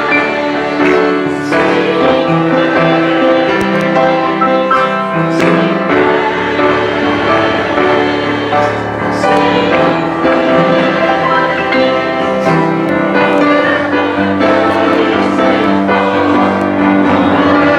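Worship song: music with singing voices and held notes, possibly with piano.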